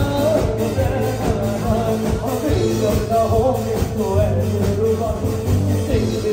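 Live band playing an upbeat rock-pop song: a male singer over electric guitar, keyboard and drums, with a steady beat.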